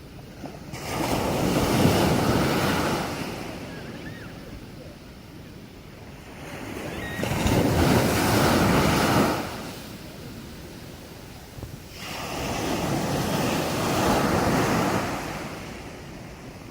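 Sea waves breaking on a beach: three surges about six seconds apart, each swelling and then falling back to a quieter hiss.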